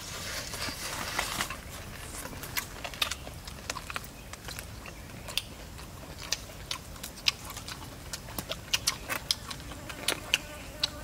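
Close-up eating of grilled pork ribs: biting and tearing at the meat, then chewing with many irregular wet smacks and clicks. A brief rush of noise in the first second and a half as the meat is torn.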